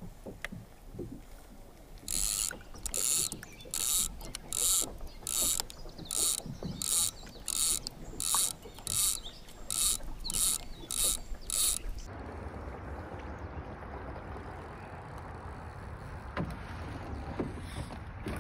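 A rhythmic mechanical ratcheting, about fifteen evenly spaced bursts roughly two-thirds of a second apart, that stops abruptly. It is followed by a steady rush of wind and flowing river water.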